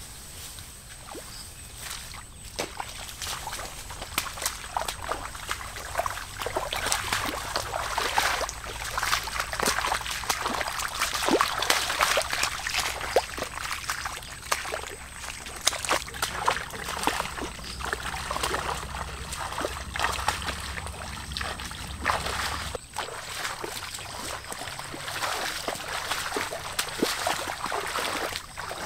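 Bare feet wading through shallow muddy floodwater: a steady run of small splashes and sloshing, building up a few seconds in.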